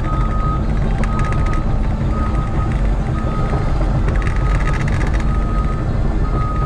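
Cat excavator's diesel engine running steadily as the machine tracks forward, with its travel alarm beeping about once a second. Short clattering rattles come about a second in and again around the middle, heard from inside the cab.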